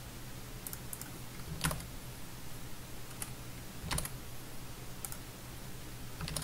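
Scattered clicks of a computer keyboard and mouse: a handful of separate sharp taps, the loudest about a second and a half and four seconds in, over a steady low electrical hum.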